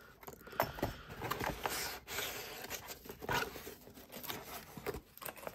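Foam packing peanuts rustling as a hand rummages through a shipping box, with small scrapes and taps scattered through.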